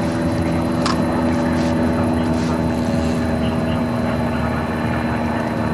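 A steady mechanical drone with a constant low hum that does not change in pitch, and a brief high chirp about a second in.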